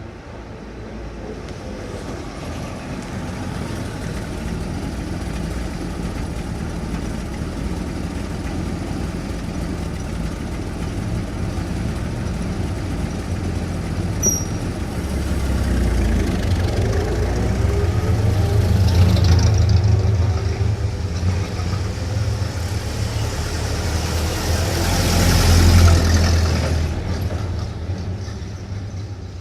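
Suburban street traffic: a steady low rumble of motor vehicles, swelling twice as vehicles pass close, about two-thirds of the way through and again near the end, with engine pitch rising and falling as they go by.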